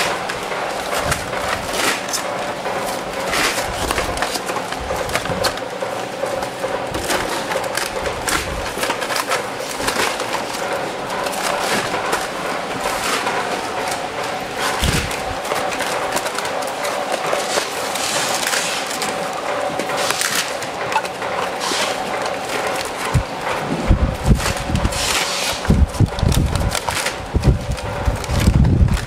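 Factory-floor clatter: frequent light clicks and knocks over a steady machine hum, with a run of heavy low thumps in the last few seconds.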